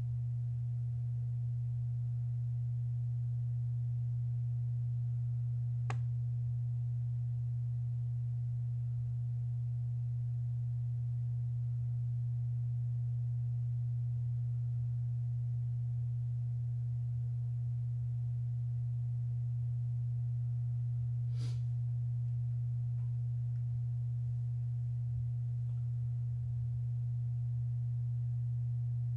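Steady low-pitched hum, one unchanging tone, with two faint clicks, one about six seconds in and one about twenty-one seconds in.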